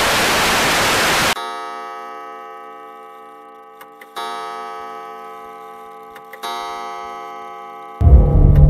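Loud TV-static hiss that cuts off suddenly, then a deep ringing tone struck three times a couple of seconds apart, each slowly fading, with a few faint clicks. Loud scary music starts near the end.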